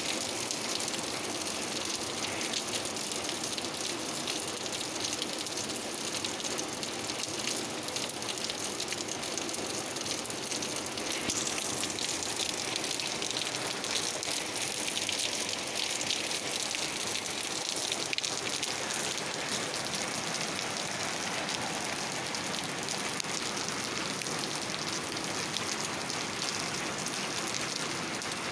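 Steady rain falling: an even hiss with a dense patter of drops.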